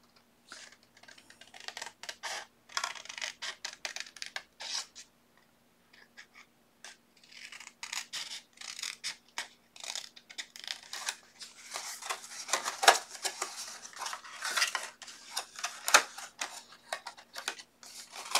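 Scissors snipping into a paper envelope in short, irregular cuts, with the paper rustling as it is handled. The snipping gets busier and louder in the second half.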